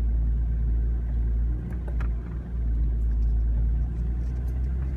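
Inside a BMW car driving slowly over a bumpy grass track: a steady low engine and road rumble, with a few light knocks or rattles about two seconds in.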